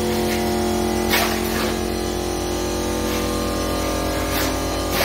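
A small electric motor running with a steady hum, while shovels scrape and scoop wet concrete now and then, a few separate scrapes.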